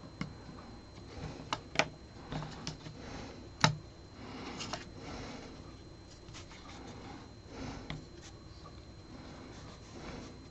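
Hand work on small model-boat drive parts on a wooden board: light taps, rubs and a few sharp clicks as a hex key, metal shafts, universal joints and a small electric motor are handled and set down. The loudest click comes a little over a third of the way in.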